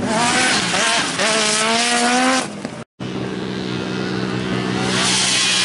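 Off-road side-by-side (UTV) engine revving, its pitch climbing steadily under throttle over a hiss. The sound breaks off briefly about three seconds in, then a steadier engine drone returns and grows louder near the end.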